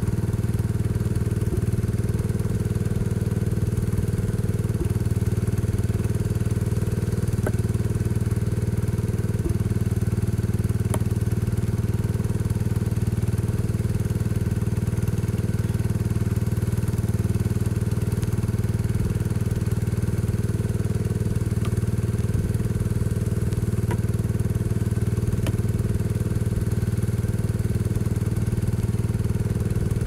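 1975 Case 224 garden tractor's engine running steadily at a constant speed, driving the hydraulic pump of a homemade log splitter. A few faint sharp clicks sound over it.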